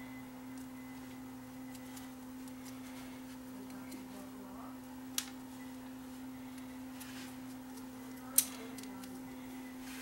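Small plastic clicks as the teal parts of a ceiling fan's ball-chain pull switch are handled and pressed together, the sharpest about eight seconds in, over a steady low hum.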